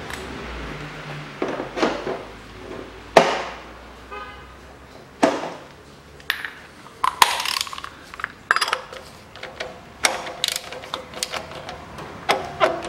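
Metal hand tools clicking, clinking and knocking as a cap-type oil filter wrench and ratchet are handled and fitted onto the oil filter, some knocks ringing briefly.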